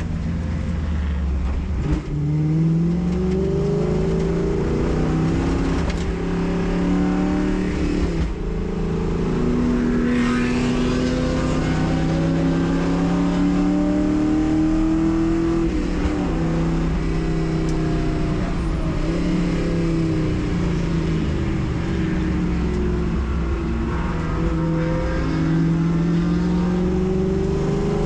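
Race car engine heard from the cockpit, climbing in pitch under acceleration and dropping back at each upshift or lift for a corner, over and over through a lap.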